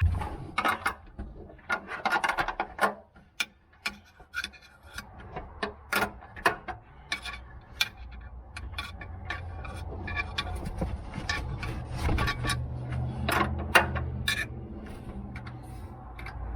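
Plastic trunk trim panels and clips being pried off and handled: irregular clicks, knocks and rubbing scrapes. A low steady hum comes up about halfway through.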